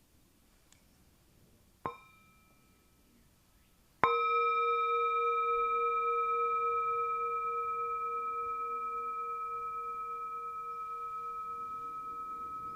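Singing bowl struck lightly once, then struck firmly about two seconds later and left to ring, its tone slowly fading with a steady waver. It is the bell that closes the meditation sitting.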